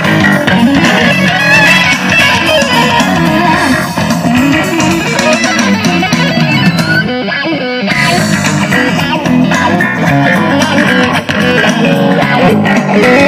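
Guitar music playing through a vintage Wald Sound loudspeaker, heard close to its grille. The top end briefly cuts out about seven seconds in.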